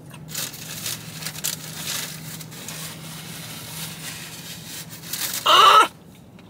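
Crackly rustling of a paper napkin and the small sounds of eating, over a steady low hum. About five and a half seconds in comes a brief, loud, pitched vocal sound, an appreciative "mmm" of someone enjoying food.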